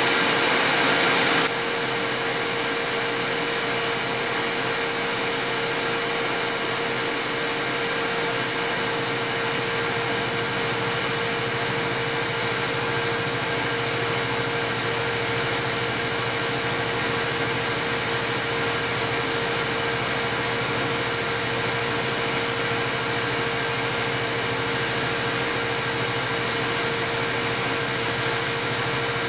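Metal lathe running steadily while its turning tool faces a cast iron flywheel: an even machine hum with a steady whine. The sound drops slightly in level about a second and a half in, then holds.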